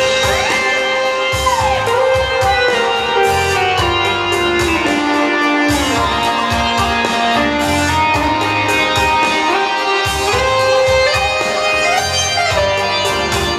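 Music: a held melody line that slides from note to note, over a steady beat.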